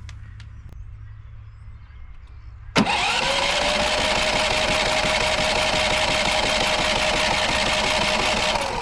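Westinghouse iGen4500DF inverter generator's engine catching about three seconds in on a shot of starting fluid, quickly revving up and then running at a steady pitch for about six seconds before it dies away near the end. It is the sign of stale fuel in the line, which the owner takes for bad gas that still has to be flushed out of the carburettor by fresh fuel.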